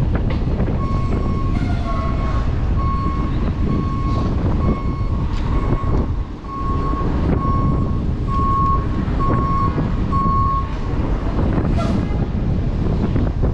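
A vehicle's reversing alarm beeping one steady high tone at an even pace, about one and a half beeps a second, and stopping about three seconds before the end, under heavy wind rumble on the microphone.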